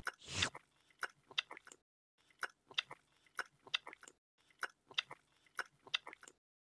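A cow chewing grass: short crunching bites in quick clusters of three or four, the clusters about a second apart, stopping shortly before the end. A louder sound fades out in the first half second.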